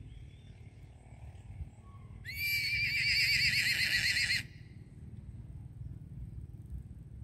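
A horse whinnying once: a high, quickly wavering call about two seconds long that cuts off sharply. A low rumble runs underneath throughout.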